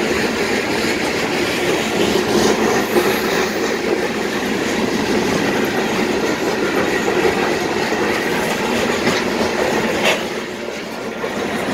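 Loaded rock-train freight cars rolling past, their steel wheels on the rails making a steady rumble with clicks and clunks. There is one sharper knock about ten seconds in.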